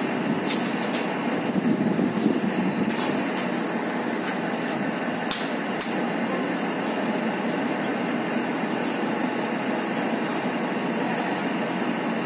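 Diesel-electric multiple unit (DEMU) power car's diesel engine running at a steady idle while the train stands at the platform, with occasional faint high ticks.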